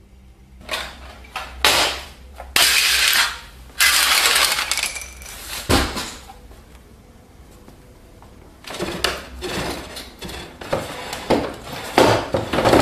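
Small hard objects clattering and knocking as they are thrown or knocked from a coffee table and scatter across a hard floor, with a heavy thud a little before halfway and a busy run of knocks and rattles near the end.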